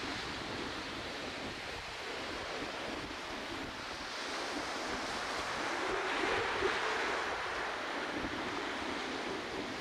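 Baltic Sea surf breaking and washing on a sandy beach, a steady rush that swells louder about six seconds in, with wind buffeting the microphone.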